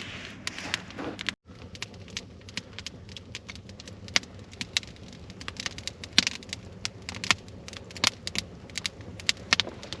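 Wood fire crackling, with irregular sharp pops and snaps; the sound cuts out for a moment about a second and a half in.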